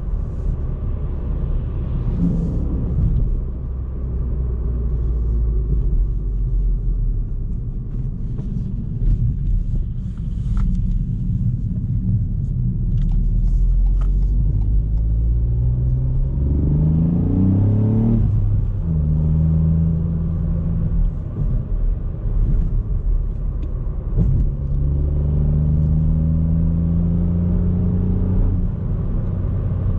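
Ford Fiesta ST Mk8's 1.5-litre turbocharged three-cylinder engine and road rumble on the move. After a stretch of lighter running, the engine pulls up through the revs, drops sharply a little past halfway as in a gear change, holds steady, and climbs again near the end.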